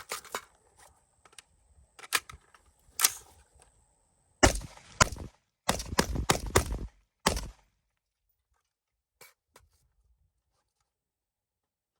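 Gunshots: a few single shots in the first three seconds, then a quick string of about eight shots fired in rapid succession.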